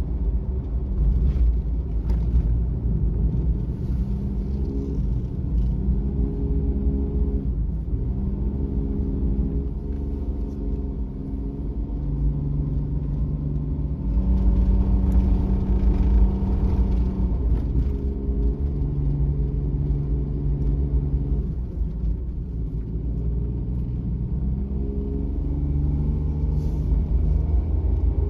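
Suzuki Every kei van's small three-cylinder engine and road noise heard inside the cabin while driving, a steady low rumble with the engine note stepping up and down in pitch every few seconds as the throttle and load change on a mountain road.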